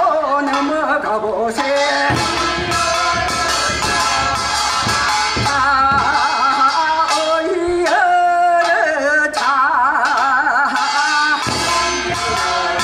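Korean charcoal-makers' folk work song: a voice singing with a wide, wavering vibrato, accompanied by drum beats that come in about two seconds in and stop shortly before the end.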